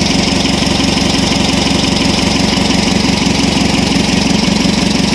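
Isuzu 4HL1 four-cylinder diesel engine idling steadily with an even beat, running smoothly on freshly rebuilt injector nozzles after its idle was set slightly higher; its hard-starting, no-idle fault is cured.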